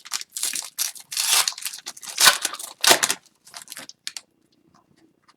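Hockey trading cards and their packaging being handled: a run of rustling, scraping and sliding sounds, dying down to a few faint ticks about three seconds in.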